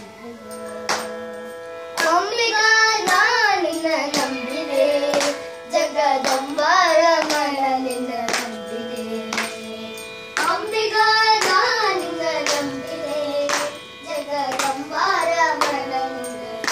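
Carnatic devotional song sung in long, gliding phrases over a steady drone. Regular hand claps keep the tala. The singing breaks off briefly about two-thirds of the way through.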